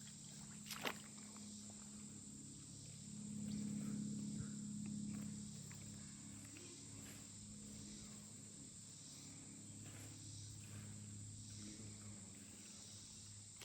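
Insects droning in a steady high-pitched chorus, with a low hum underneath that swells for a couple of seconds about three seconds in, and a single sharp click about a second in.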